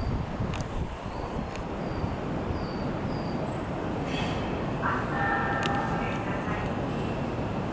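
Tobu Skytree Line electric train running on the track with a steady rumble of wheels on rail. About five seconds in, a brief high-pitched tone lasts about a second.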